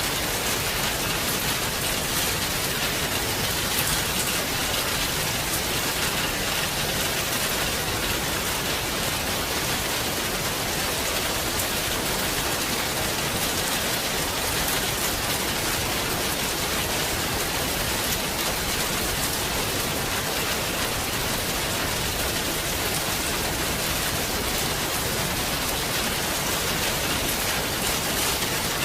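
Heavy rain falling steadily, a dense even hiss of countless drops with no letup and no thunder clap.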